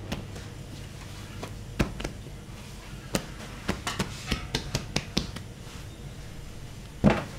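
Hands patting and folding a slab of bread dough on a floured work table: a run of irregular light slaps and taps, with one louder knock near the end, over a steady kitchen hum.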